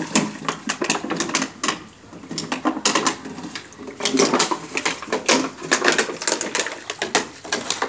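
Irregular, rapid clicking and tapping of a husky's claws on a terrazzo stone floor as the dog moves about.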